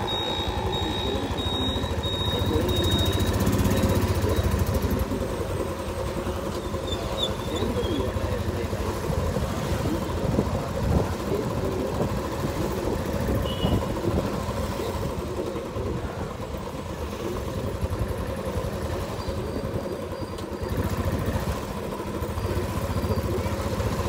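Motorcycle running while riding, with engine and wind noise, picked up through a boAt Airdopes 411 ANC true-wireless earbud's microphone with noise cancellation on.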